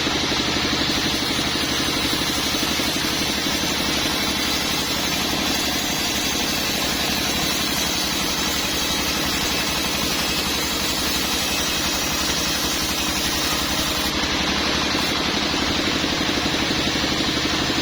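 Sawmill machinery running steadily with a constant engine-like drone that never pauses or changes.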